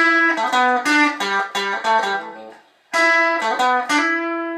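Stratocaster-style electric guitar with its tone knob turned down, picking two short phrases of single notes. The second phrase ends on a held note that rings on and fades.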